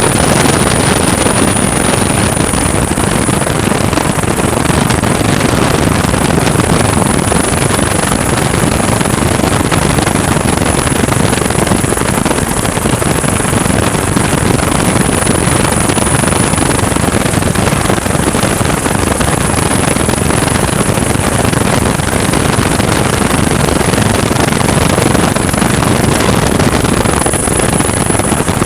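MH-65 Dolphin helicopter running in flight: a loud, steady mix of turbine and rotor noise with a constant high-pitched whine on top.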